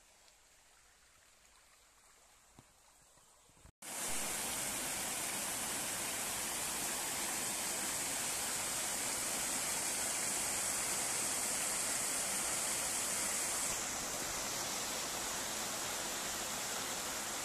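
Quiet at first, then from about four seconds in the steady rushing of stream water pouring between the boulders of a small rock weir. It eases a little near the end.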